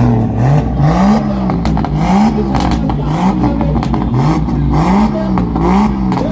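Drift car's engine revved in quick repeated blips, rising and falling in pitch about one to two times a second, with sharp exhaust crackles between the blips.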